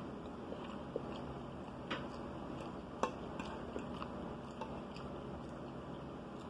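A metal fork clinking and scraping against a dinner plate as food is cut and picked up: a handful of short sharp clicks, the sharpest about three seconds in, over a low steady hum.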